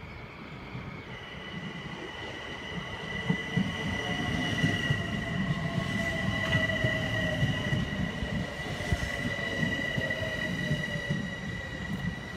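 Metro-North M7A electric commuter train pulling in alongside the platform, its wheels rumbling and clattering and growing louder as the cars pass close by. From about a second in a high steady whine sounds over the rumble. Through the middle a lower whine falls slowly in pitch as the train slows.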